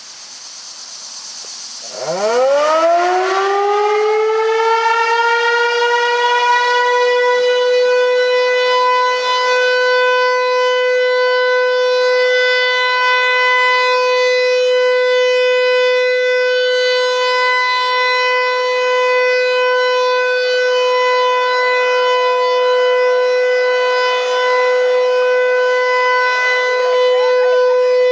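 Federal Signal 508 rotating electromechanical outdoor warning siren starting up about two seconds in: its pitch climbs fast and levels off into a loud, steady single tone, sounding for a test.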